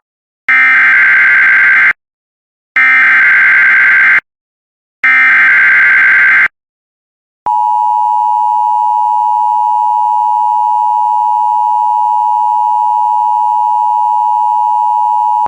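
Emergency Alert System header: three short bursts of buzzing data tones (the SAME header sent three times), then, about seven and a half seconds in, the steady two-tone attention signal. Together they mark the start of an emergency alert, here a severe thunderstorm warning.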